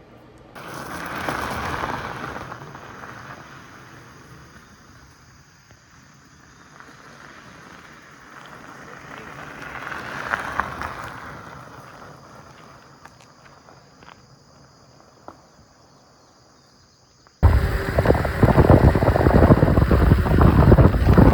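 Outdoor rushing noise that swells and fades twice. Then, about seventeen seconds in, loud rough wind buffeting on the microphone starts abruptly, as from riding the bike.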